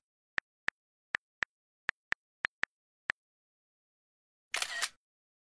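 Camera-shutter sound effect, then nine short, sharp clicks over about three seconds, then a second shutter sound near the end, with dead silence between.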